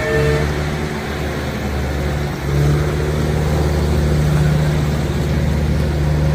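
Heavy machine's engine running with a deep, steady drone. It dips for a moment about two and a half seconds in, then comes back a little louder.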